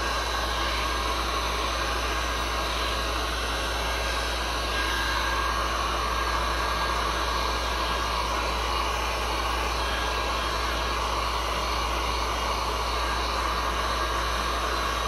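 Handheld heat gun blowing steadily over freshly poured epoxy resin to bring up and pop surface bubbles; an even, unbroken rush of hot air.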